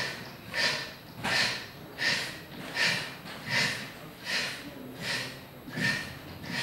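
A person drawing in air through the mouth in short, sharp sips, an even series of about nine, one every three-quarters of a second. This is a yogic breathing exercise: the lungs are filled in many small sips before a breath hold.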